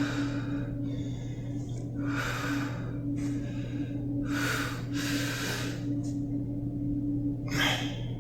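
A runner's heavy breathing: about six hard, noisy breaths at uneven intervals of one to two seconds, over a steady low hum.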